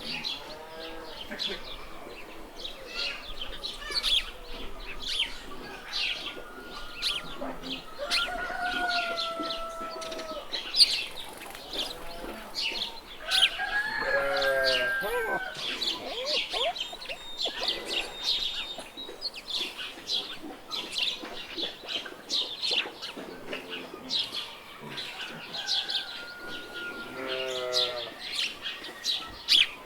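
Farmyard ambience: a steady chatter of small birds chirping, with chickens calling three times, about a quarter of the way in, midway, and near the end.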